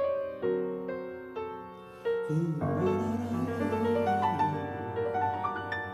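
Grand piano playing a slow introduction of struck chords, ending in a rising run of notes. About two seconds in, a man's low voice comes in over it, wavering in pitch.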